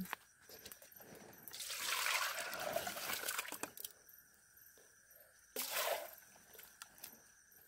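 Liquid poured from one aluminium cooking pot into another: a splashing pour lasting about two seconds, then a second short splash about two seconds later.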